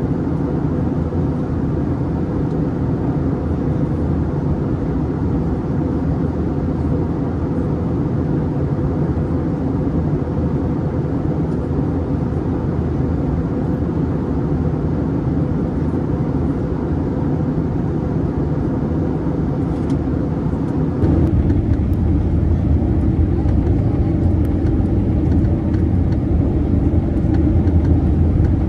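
Steady cabin noise of an Airbus A321neo in flight on descent: a deep airflow and engine rumble. About 21 seconds in, the low rumble suddenly gets louder and stays that way.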